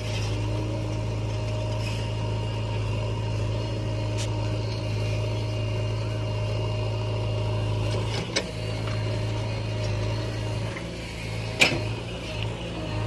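JCB 3DX backhoe loader's diesel engine running steadily. Two sharp metallic knocks come about eight seconds in and again near the end.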